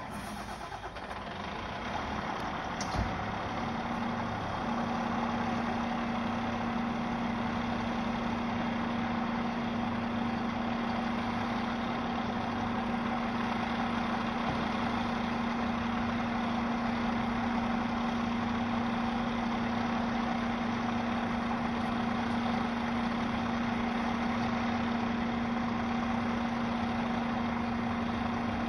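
A Volvo fire engine's diesel engine starting up and then idling. A steady hum joins the idle about four seconds in and holds.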